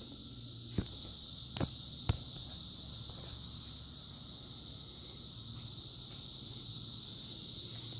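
Steady high hiss with a low hum under it: shop room tone. Three light knocks come about one, one and a half, and two seconds in.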